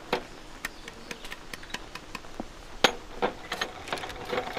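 A run of irregular sharp clicks and light taps, a dozen or so, the loudest nearly three seconds in.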